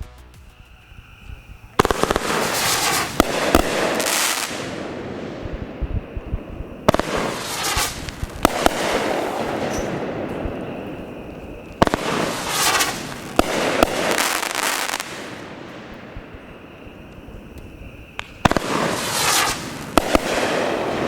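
Skysong 'Lawless' 24-shot, 500-gram firework cake firing in four volleys. Each volley opens with sharp launch thumps, then several seconds of crackling bursts, with short lulls between volleys.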